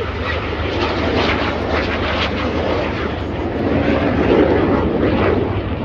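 BAE Hawk T1 jets flying past, a broad jet-engine noise that swells and is loudest about four seconds in.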